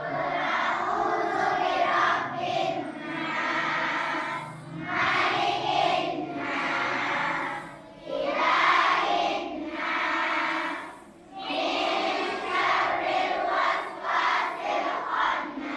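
A large group of children chanting in unison, in phrases of a few seconds each with short breaks between them.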